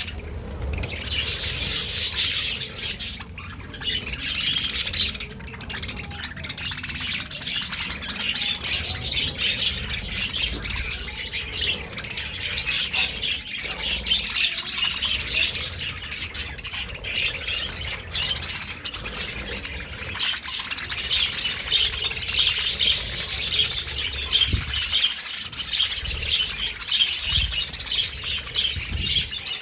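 Many budgerigars chattering, chirping and squawking over one another in a continuous dense warble, over a low rumble.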